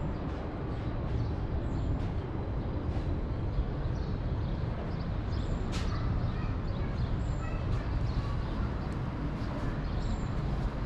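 Outdoor city street ambience: a steady low rumble of traffic, with a single sharp click about six seconds in.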